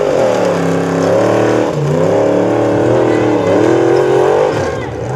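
Formula Offroad buggy's engine revving hard under load as it climbs a steep, loose hill, its pitch swinging up and down several times as the throttle is worked.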